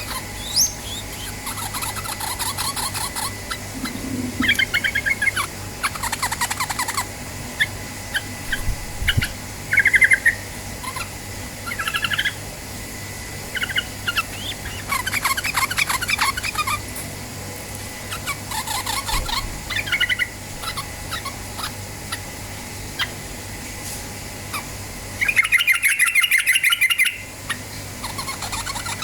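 Sooty-headed bulbul (trucukan) calling: short chirping phrases mixed with several rapid rattling trills, the loudest burst near the end. A faint steady low hum runs underneath.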